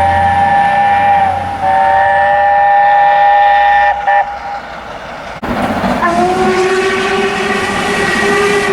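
Train horns sounding several tones together as a chord: one blast held about a second and a half, a brief break, then a second blast of a couple of seconds. After a cut, another train's horn sounds a lower, steady note for about three seconds.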